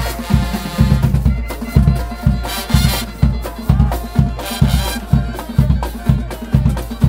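Brass band playing an up-tempo tune: trombones, trumpets and sousaphone over a steady drum beat of about two strokes a second.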